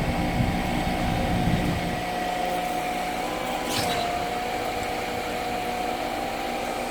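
Truck-mounted concrete pump running: a steady engine drone with a held whine. A short hiss a little past halfway.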